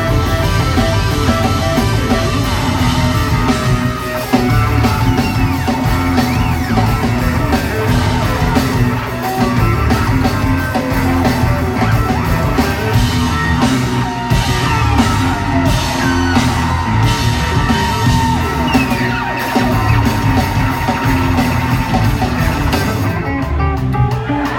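Live instrumental rock band, with guitar, bass, keyboards and drums, playing loudly in a large hall. A long held tone runs through the middle stretch.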